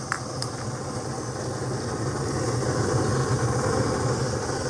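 Gas stove burner burning with a steady low rumble just after being lit, with two light clicks near the start.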